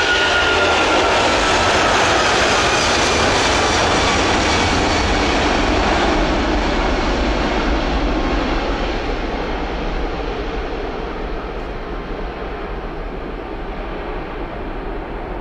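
Four-engine Airbus A340 jetliner on its takeoff roll at takeoff power. A whine slides down in pitch as the aircraft passes in the first few seconds, then the engine noise fades and grows duller as it moves away down the runway.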